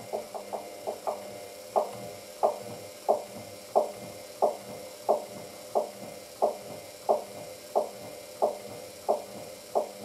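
Hoover DYN9144D3X washing machine turning its drum slowly to spread an unbalanced load before spinning, with a soft thud about every two-thirds of a second as the laundry tumbles. It is stuck in repeated balancing attempts, the spin held back because the load will not even out.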